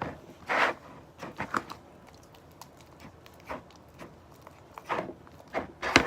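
Slime being stirred and squished in a bowl, with irregular wet squelching and scraping sounds that come in short bursts.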